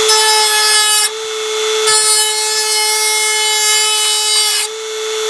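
Dremel rotary tool running at a steady high whine while cutting plastic: a rasping hiss joins the whine for about the first second, and again from about two seconds in until near the end, as the bit cuts into the flare on a plastic shed door.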